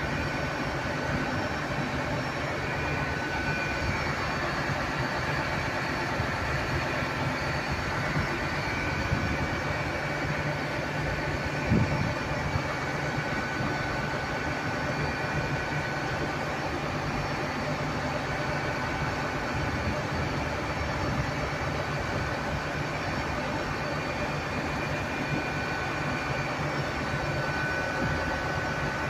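LNER Azuma Class 800 train standing at the platform, its underfloor equipment giving a steady low hum with a faint high whine. There is one short knock about twelve seconds in.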